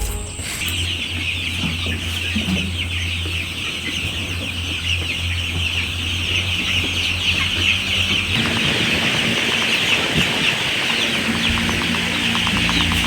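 A flock of chickens calling without a break, many overlapping high calls, over a steady low hum.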